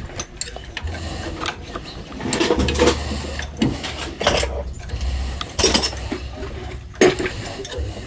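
Steel hand wrenches clinking, clicking and ratcheting against the metal of a partly dismantled Isuzu 4BC2 diesel engine as bolts are worked loose, in irregular sharp knocks. A low hum sits underneath through the middle.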